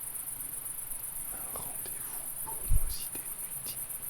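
Crickets chirping in a steady, high, finely pulsing trill. A brief low thump sounds about two-thirds of the way in.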